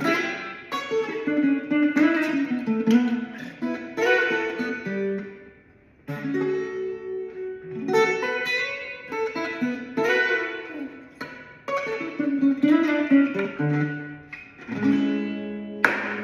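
Solo guitar playing plucked melodic phrases in the key of A, with a short break about six seconds in and a held, ringing chord near the end.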